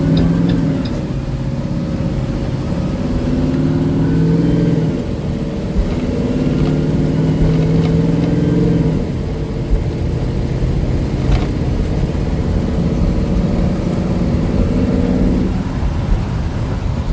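School bus's 8.8-litre gasoline engine pulling under acceleration, its note climbing and falling back several times as it works up through the gears. It runs evenly, without misfires, on a test drive after an exhaust manifold repair.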